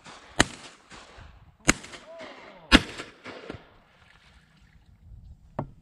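Shotgun fired three times in quick succession, a little over a second apart, at ducks overhead; the third shot is the loudest, and each crack trails off briefly. A fainter crack follows near the end.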